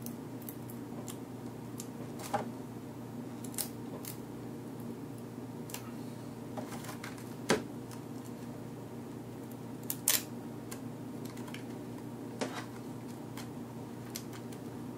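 Adhesive tape being picked at and peeled off a netbook LCD panel's display cable connector by fingernails: a few scattered sharp clicks and crackles, the loudest about seven and a half and ten seconds in, over a steady background hum.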